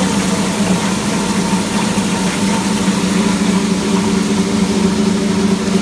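Enma GS-series sound-proof plastic granulator running steadily: an even motor hum with a constant low drone and several steady tones over a broad noise, with no separate grinding knocks.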